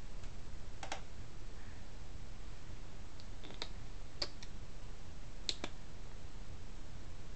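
A handful of short, sharp light clicks, scattered a second or so apart with a close pair near the end, over a steady low hum: a kitten's claws tapping on a plastic chair mat and office-chair base.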